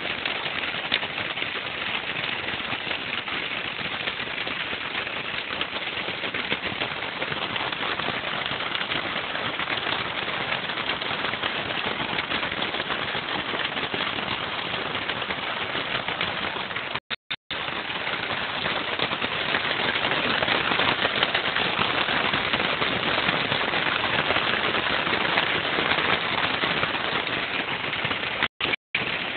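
Garden pond fountain jet spraying up and spattering back down onto the water and rocks, a steady crackling splash that grows louder about two-thirds of the way through.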